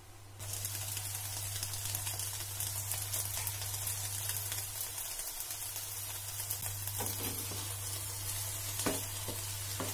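Brinjal (eggplant) strips sizzling in a nonstick frying pan: a steady hiss that starts suddenly about half a second in. From about seven seconds a wooden spatula stirring them adds a few short knocks and scrapes against the pan.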